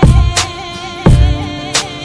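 Hip hop beat: heavy kick drums and sharp snare hits under a held, wavering melody.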